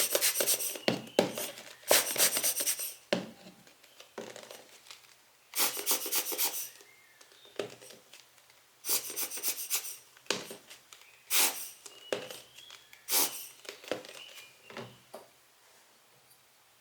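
Hands handling small lens parts on a desk, making short bursts of rubbing and scraping, about seven times.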